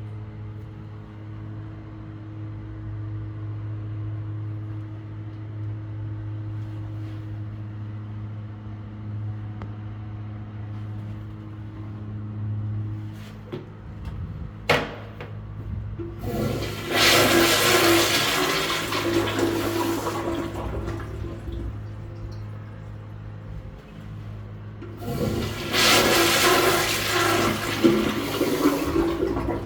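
Daelim Bath CC-114K toilet flushing. A click about halfway through is followed by a loud rush of water for about four seconds, which then eases. A second loud rush of water comes near the end.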